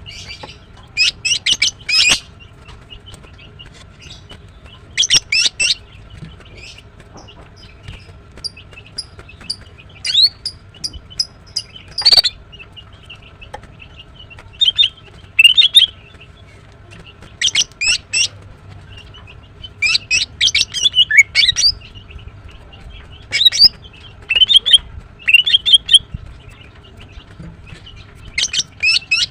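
Female greater green leafbird calling: bursts of rapid, sharp, high chirps every few seconds, with short quiet gaps between.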